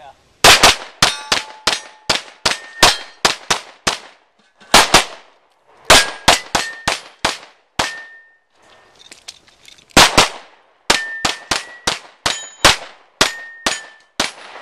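Rapid pistol fire through a practical shooting stage: dozens of shots in fast strings with two short pauses. Many hits on steel targets ring with a brief clear ding.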